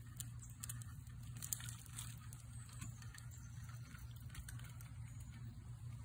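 Faint outdoor background: a steady low hum with scattered soft clicks and ticks, and one slightly louder tick about a second and a half in.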